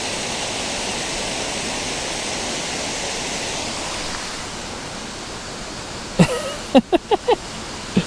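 Small creek waterfall rushing steadily, a little quieter from about four seconds in. Near the end a man's voice makes a few short sounds.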